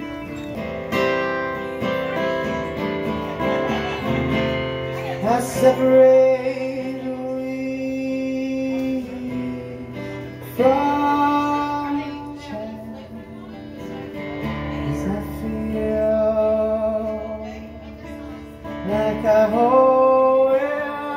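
Live solo acoustic set: a man singing into a microphone while strumming an acoustic guitar. The sung lines come in phrases about 4, 10 and 19 seconds in, with the guitar ringing between them.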